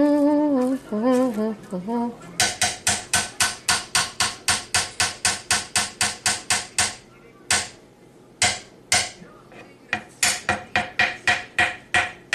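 Rapid sharp knocks, about four to five a second, stopping briefly around the middle and starting again near the end, after a short hummed or sung voice at the start.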